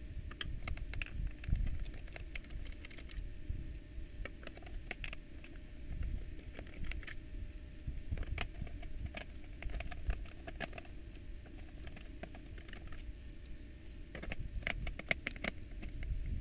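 Phillips screwdriver unscrewing the screws from the plastic bottom casing of a Yamaha M4 mixer: scattered small clicks and taps, with a quick run of clicks near the end, over low rubbing and knocking as the case is handled.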